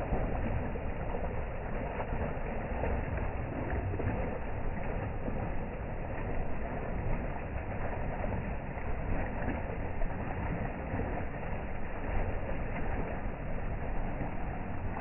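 Water gushing and bubbling up from the outlet of an underground irrigation pipe in a farm field: a steady churning splash with no let-up.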